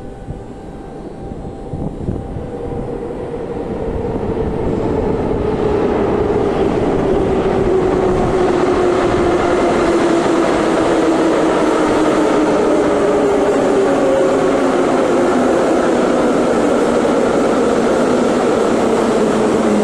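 Moscow Metro 81-717/714 'numbered' train arriving at the platform. Its rumble grows louder over the first several seconds and then holds, while the traction motor whine falls steadily in pitch as the train slows.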